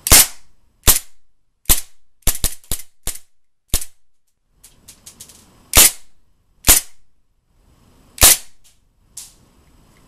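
HG-170 gas blowback airsoft pistol firing semi-automatically, about a dozen sharp shots at uneven intervals, some in quick succession, with the slide cycling on each shot.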